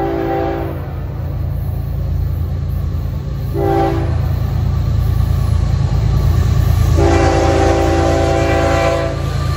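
Florida East Coast freight locomotive's air horn sounding for a grade crossing: the end of a long blast, a short blast about three and a half seconds in, and a long blast from about seven seconds in. Under the horn, the low rumble of the approaching diesel locomotives and train grows louder.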